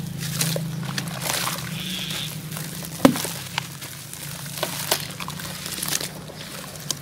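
Hands crumbling lumps of dried brown dirt paste into a tub of water: gritty crunching and crackling with splashing and sloshing, and one sharp knock about three seconds in. A steady low hum runs underneath.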